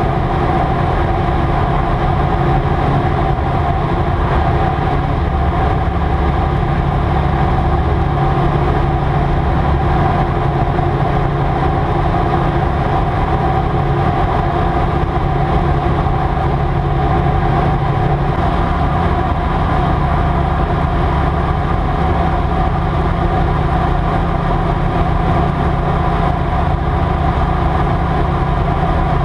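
Single-engine piston light aircraft's engine and propeller running steadily at high power during the climb-out after takeoff, heard inside the cockpit as an even, unchanging drone.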